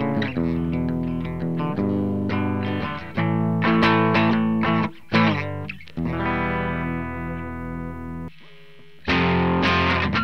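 Ibanez RG370DX electric guitar played through a Line 6 POD 2.0 amp modeller with distortion, sustained chords and notes ringing out. The playing stops briefly about eight seconds in, then starts again louder and brighter: the 'Brit Class A' amp model with cranked-up gain.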